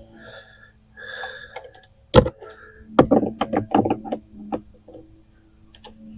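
Sharp clicks of hand tools working screws into a car door panel: one loud click about two seconds in, then a quick run of about eight clicks over a second, and another click near the end.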